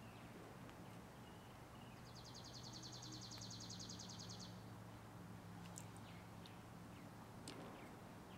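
Faint outdoor quiet in which a small bird gives one high, dry trill of about eight notes a second, lasting about two and a half seconds, followed by a few thin chirps near the end, over a faint steady low hum.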